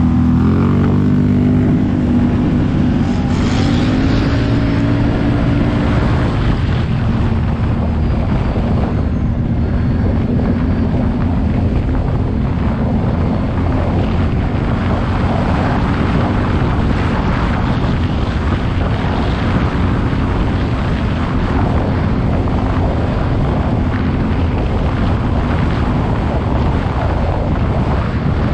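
ATV engine running under way, rising in pitch over the first few seconds as it accelerates, then holding a steady pace, with some wind noise.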